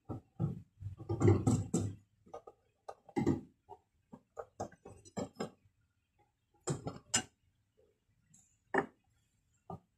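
Irregular metallic clinks and knocks as tools and parts are handled while a fuel pump is being replaced, denser in the first few seconds and sparser later.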